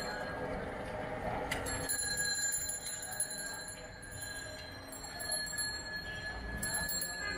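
Metal spatulas clinking and scraping on a large flat frying pan where kheta puris are shallow-frying in oil, with short metallic clinks over a steady background hiss.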